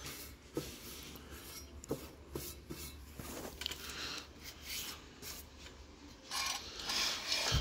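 Faint handling noise: a hand rubbing and scraping over the metal of a Kohler KT-17 twin-cylinder engine's cleaned parts, with a few light clicks and a louder stretch of rubbing near the end.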